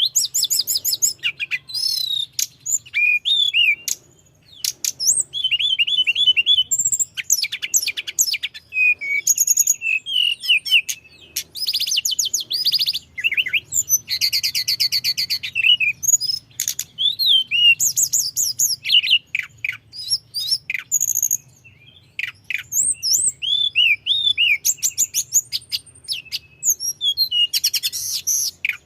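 Tledekan gunung songbird singing a fast, rolling song of high whistles, sweeping notes and rapid trills, strung together with only brief breaks.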